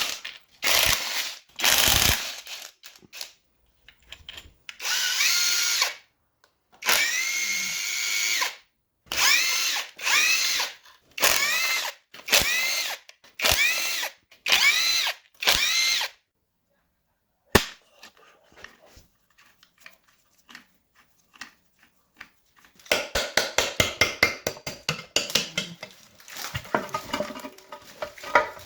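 Power tool spinning up in a series of short bursts, a whine rising and falling in pitch each time, as fasteners are run out during engine disassembly. About two-thirds of the way in, a fast run of clicks follows.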